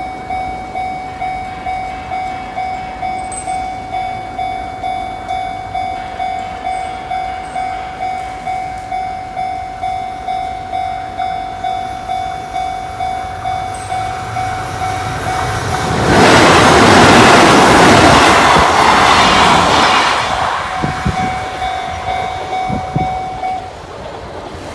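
Japanese level-crossing warning bell ringing in a quick, even ding. About 16 seconds in, a Kintetsu Minami-Osaka Line train passes through the crossing, loud enough to drown the bell for about four seconds. The bell then rings on briefly over wheels knocking on rail joints and stops near the end.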